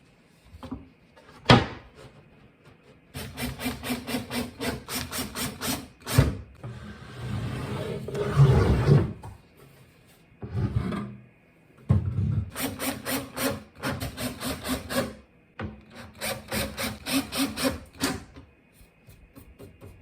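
Wood being worked by hand in runs of quick back-and-forth rubbing strokes, about four a second, with a rougher stretch midway, like sanding or rasping a board. A sharp knock about a second and a half in.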